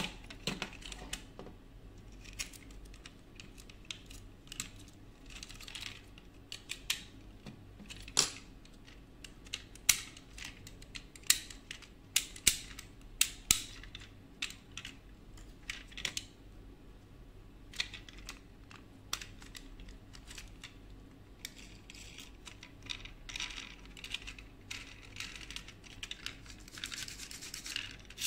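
Scattered sharp clicks and taps of a small die-cast model car being handled and knocked against a table, with a light scratchy rubbing in the last several seconds.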